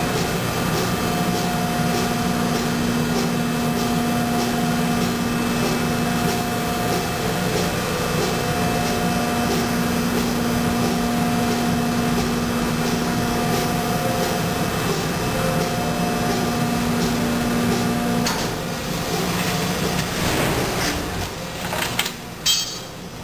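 Injection molding machine running a stack mold through its cycle: a steady machine hum with held tones while the mold stays clamped shut, which drops away about 18 seconds in. Near the end come a few sharp metallic knocks as the mold plates and the rack-and-pinion linkage start to move for mold opening.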